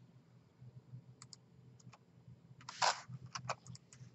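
Computer mouse clicks and keyboard key presses while lines in a CAD sketch are selected and deleted: scattered single clicks, a quick run of several near the end, and one louder short burst of noise a little before three seconds in, over a faint low hum.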